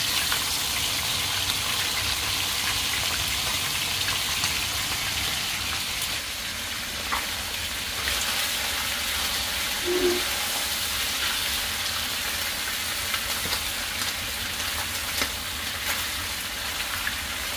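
Steady sizzling of chicken pieces frying in a pan while a silicone spatula stirs them, a fish frying in oil in a second pan beside it, with a few light clicks of utensils against the pans. The chicken is giving off its own fat.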